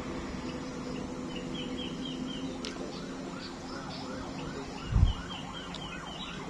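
Distant emergency-vehicle siren in a fast yelp, its pitch sweeping up and down about three to four times a second, over a steady low hum. One low thump about five seconds in.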